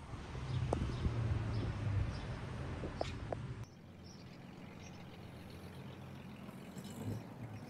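Outdoor background: a steady low hum like traffic or an engine, with a few short bird chirps and light clicks. About three and a half seconds in it drops abruptly to a quieter background.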